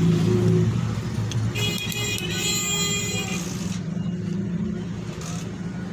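A steady low motor hum, like a vehicle engine running, with a high horn-like tone sounding for about two seconds in the middle.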